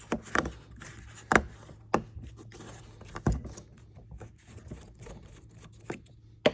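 Scattered sharp clicks and knocks of a 5-litre plastic motor oil jug being handled and its cap opened.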